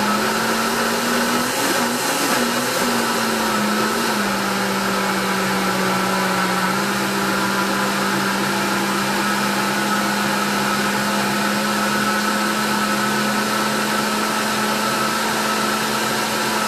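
Countertop blender motor running hard under a thick load of grated carrots, eggs, oil and sugar. Its pitch wavers for the first few seconds as the mix churns, then holds steady.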